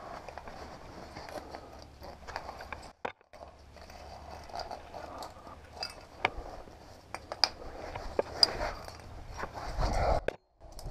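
A climber and their gear scraping, tapping and clicking against rock while squeezing through a tight chimney passage, with irregular sharp clinks. The sound cuts out briefly twice.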